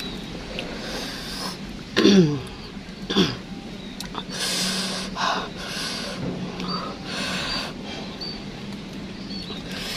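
Mouth sounds of a woman eating pomelo with sambal: two short falling vocal sounds about two and three seconds in, then a run of hissing breaths through pursed lips.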